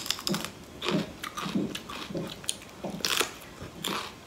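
A crisp bite into a raw green vegetable stick, then crunchy chewing with close mouth sounds, about two crunches a second.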